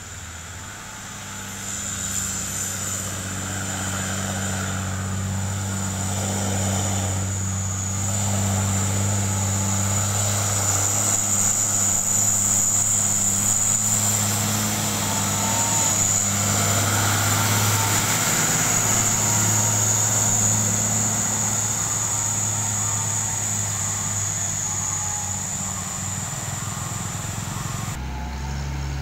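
Nissan Condor truck's diesel engine running steadily at low revs as the truck approaches, getting louder through the middle and then easing off slightly. A steady high-pitched whine sounds over it.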